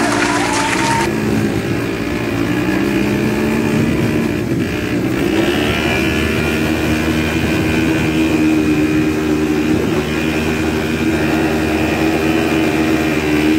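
Quad bike (ATV) engine running while riding over sand, its pitch rising and falling with the throttle for the first few seconds, then steadier. A hiss over it stops about a second in.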